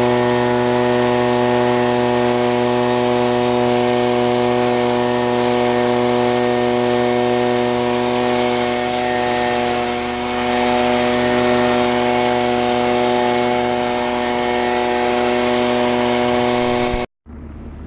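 Two-stroke leaf blower running steadily at high speed while blowing dust and chaff off the machine. The sound stops suddenly near the end.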